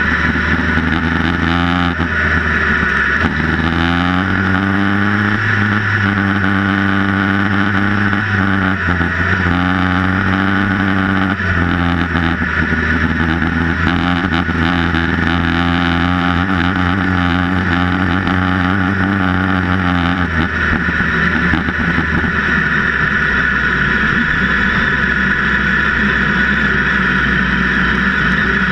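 Sprint 1600 autocross buggy's engine heard onboard while driving on a dirt track, its revs rising and falling through the gears. After about twenty seconds the engine note becomes less distinct under a steady rush of wind and track noise.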